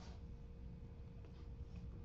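Quiet room tone with a low steady hum and a faint computer mouse click at the start.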